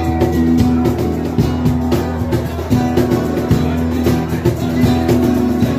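Live acoustic band playing an instrumental stretch: two acoustic guitars strumming a driving rhythm, with hand percussion striking along in time.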